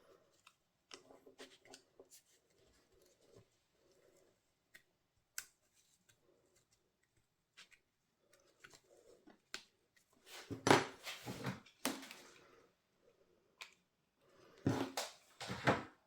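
Hands working at a craft table: faint taps and small clicks of paper and tools being handled, then two louder spells of rustling and knocking past the middle and near the end.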